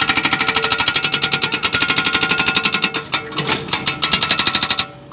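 Excavator-mounted hydraulic rock breaker hammering a boulder, rapid blows about ten a second with a metallic ring. It pauses briefly about three seconds in, hammers again, then stops near the end.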